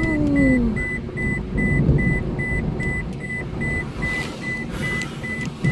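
A car's warning chime beeping rapidly and steadily, about four high beeps a second, over the low rumble of the car driving on a wet road.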